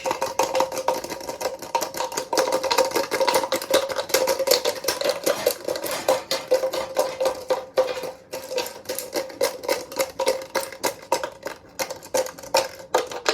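Washing machine running with a steady whine under a fast, continuous clatter of knocking and rattling.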